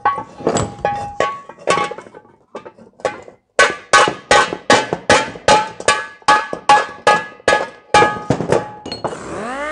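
Hammer blows on the dented sheet-metal air cleaner cover of a Ford tractor as it is straightened, each blow ringing briefly: irregular hits at first, then after a short pause a steady run of about three blows a second. Near the end a motor starts with a rising hum and a hiss.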